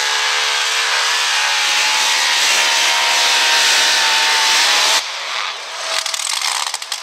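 Super modified two-wheel-drive pulling truck's engine running hard at full throttle under load, then cut off suddenly about five seconds in as the pull ends. A quieter, crackling sound follows.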